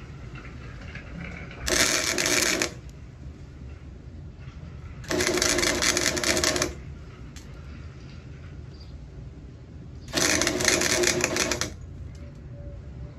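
Welding arc crackling in three short bursts of about a second to a second and a half each, spot welds being laid on a car's sheet-metal quarter panel.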